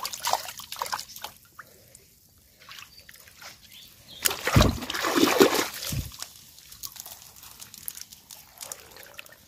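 A large basket scooped through shallow water and lifted out: splashing and sloshing, with water trickling off. There are splashes in the first second and the biggest one about halfway through.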